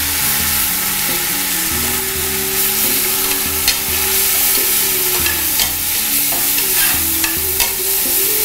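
Mint and coriander leaves sizzling in hot oil with whole spices in an aluminium pressure cooker, stirred with a metal ladle that clicks and scrapes against the pot several times.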